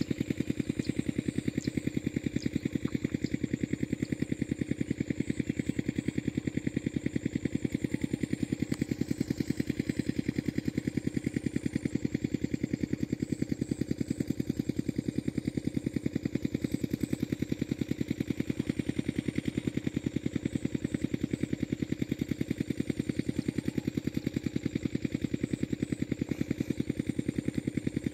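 Diesel irrigation pumping set's engine running steadily nearby, a fast, even chugging that does not change.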